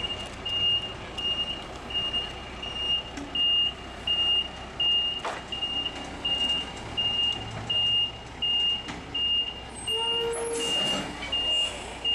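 Truck back-up alarm beeping steadily, about two beeps a second, over the rumble of a heavy military tractor hauling a lowboy trailer. A brief hiss comes near the end.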